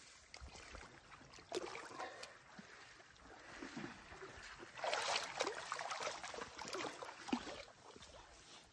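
Rustling and scraping of dry grass and sticks from hands at work on the ground, with scattered small clicks, over a faint trickle of creek water. The rustling grows louder and denser about five seconds in, then eases off.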